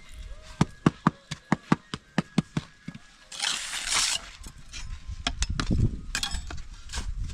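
A rapid run of sharp knocks, about four or five a second, then a short burst of hiss and a few more scattered knocks.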